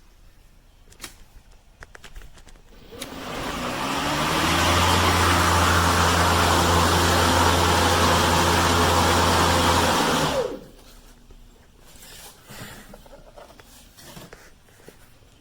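Cordless 40V outdoor power tool's electric motor, run on a Biswaye 40V replacement battery: it spins up about three seconds in, runs steadily for about six seconds, then is cut and winds down with falling pitch.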